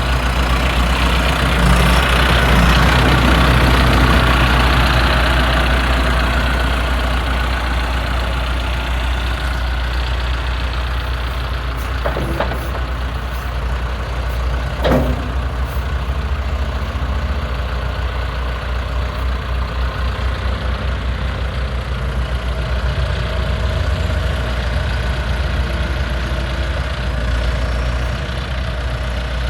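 2009 John Deere 410J backhoe loader's diesel engine running steadily. It swells louder for a few seconds near the start, then settles, with two short knocks about twelve and fifteen seconds in.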